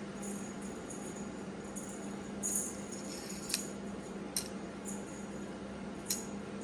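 Small jingle bell jingling in a few short shakes, the clearest about two and a half, three and a half, four and a half and six seconds in, over a steady low hum.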